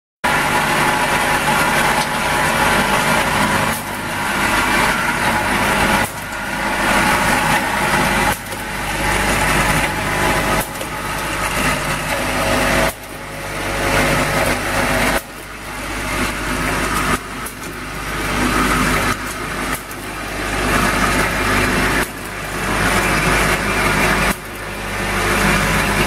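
Eye drop bottle filling, plugging and capping machine running: a loud, dense mechanical noise with a steady low hum, swelling and dropping back in a repeating cycle about every two seconds.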